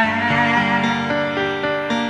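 Background music: slow, sad-sounding instrumental with held string notes.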